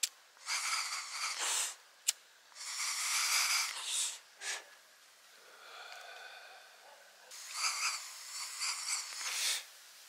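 A man smoking from a small wooden pipe: several long, breathy draws and exhales, with one sharp click about two seconds in and a faint held tone in the middle.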